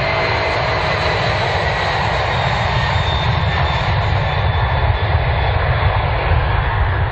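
Simulated Boeing 747 jet engines from the flight simulator running in a steady, loud drone, with a faint high whine over the rush.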